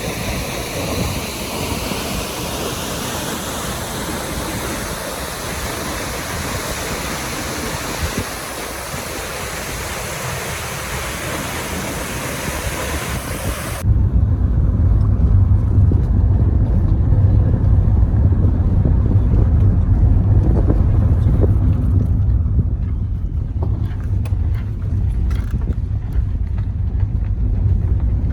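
A steady rushing noise cuts off suddenly about halfway through. After that comes the louder, low rumble of a moving vehicle.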